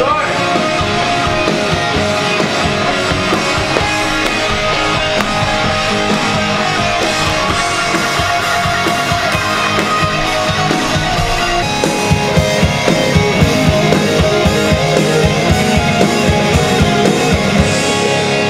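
Loud rock music with electric guitars and a drum kit. From about twelve seconds in, the drums hit harder with a steady beat.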